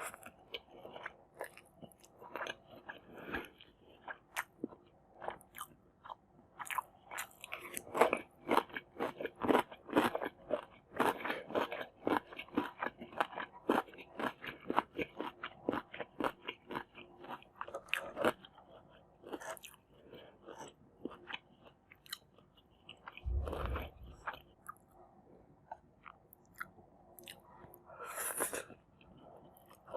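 Close-miked chewing and crunching of food, with many quick wet mouth clicks that are densest through the middle. A low thud comes a little past two-thirds of the way in, and a short hissing sound comes near the end.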